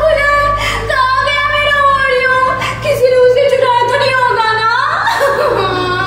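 A woman's voice drawn out in long, wavering, melodic tones over a steady low musical hum, with a rising glide about five seconds in.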